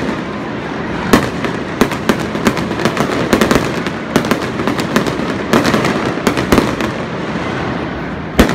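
Aerial fireworks display: shells bursting in a rapid, irregular string of bangs and pops over a dense crackle, with one especially loud bang near the end.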